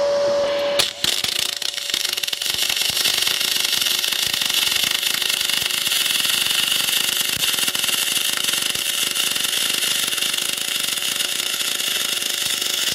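Aluminium MIG welding arc from a spool gun with 0.8 mm wire on a 2.2 mm T-joint: after a brief steady hum, the arc strikes just under a second in and runs on with an even crackling hiss. It is laying a fast weld at what is called a real good setting for a T-joint, penetrating all the way through.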